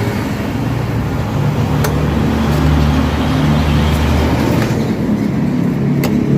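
A motor or engine running steadily with a low drone whose pitch shifts a couple of times, with a few light clicks.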